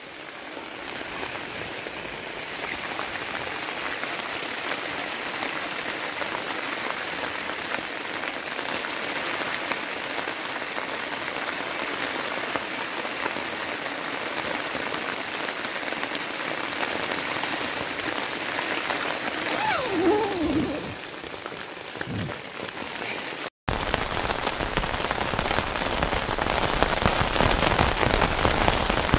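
Steady rain falling on a tent, an even hiss with no let-up. About two-thirds of the way through there is a brief break, after which the rain is louder and fuller.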